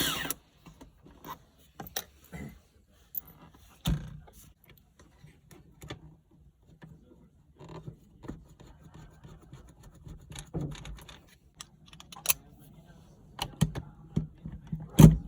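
Scattered clicks and knocks of metal and plastic parts and tools being handled during a shifter swap, with a louder knock near the end.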